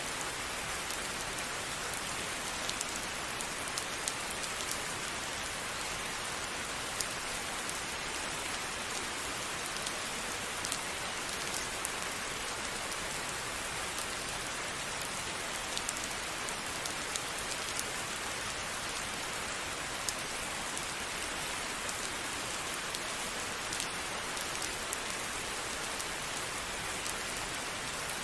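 Steady rain falling on a surface, an even hiss with many small drop ticks scattered through it.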